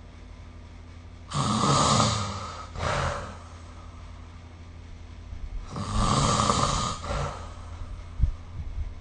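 A person snoring in sleep: two loud snores, each about a second and a half long and about four seconds apart, the first followed at once by a shorter, softer sound. There is a brief low bump near the end.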